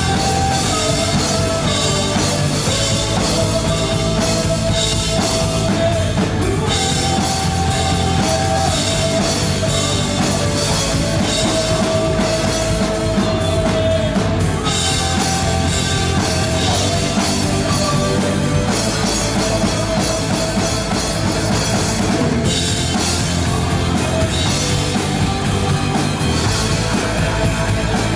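Live rock band playing: electric guitars, bass guitar and a drum kit, with held melody notes over a steady beat.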